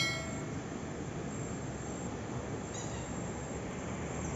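Steady rushing outdoor background noise of a forest stream, with a short bright ringing tone at the very start.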